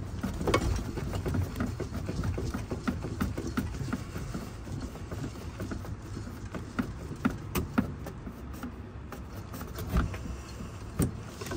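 Scattered small metallic clicks and knocks as a condenser fan hub is worked on a motor shaft held with channel-lock pliers, with a sharper knock about ten seconds in. A low steady hum sits underneath.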